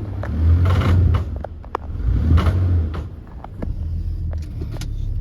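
2005 Ford Taurus engine revved twice in drive against the brake, with sharp, irregular clicking throughout. This is the clicking the car makes under acceleration, which a new transmission filter and fluid, new CV axles and new front-end parts have not cured.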